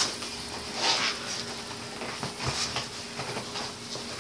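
Soft rustling and rubbing, with a few faint knocks, as a bicycle tire and inner tube are pushed back onto the rim by hand. A steady low hum runs underneath.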